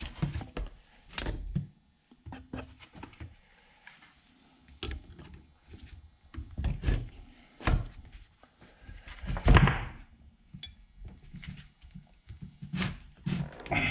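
Irregular knocks, clicks and thunks of hand tools and parts on a chainsaw being taken apart, working at a tight fastening; the loudest is a heavy thud about halfway through.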